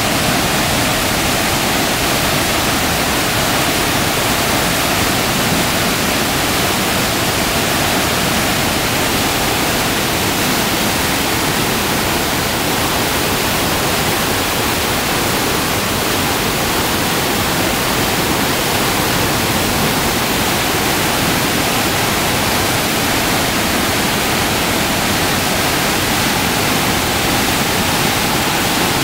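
Muddy river in flood rushing past close by, a loud, steady wash of turbulent water with no break.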